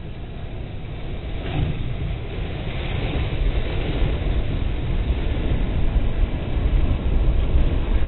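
Skoda Slavia sedan driving through a shallow river, water splashing and rushing against the car as it pushes a bow wave, over a heavy low rumble. The splashing sets in about a second and a half in and grows louder.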